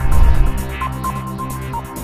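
Electronic intro music with a fast, steady beat. A heavy bass boom hits at the start and fades within about half a second.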